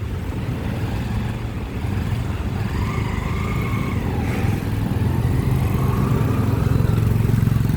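A motor vehicle engine running on the street, a steady low rumble that grows louder toward the end as it comes closer.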